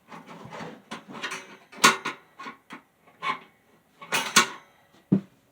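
Irregular knocks and clatters of hard parts being handled, a dozen or so in quick succession, loudest about two seconds in and again about four seconds in.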